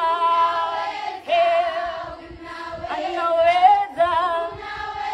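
A woman singing a worship song into a microphone, amplified over loudspeakers, with held, wavering notes and a group of voices singing along.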